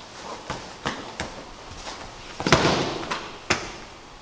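A wrestling takedown on a padded mat: a few sharp slaps of bare feet and hands on the mat, then a body thudding down about two and a half seconds in with a rustle of gi fabric, and one more sharp slap a second later.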